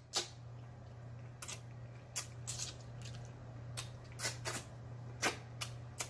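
Close-miked eating sounds: wet lip smacks and sucking as meat is eaten off a neckbone held to the mouth, about ten sharp smacks at uneven intervals. A steady low hum runs underneath.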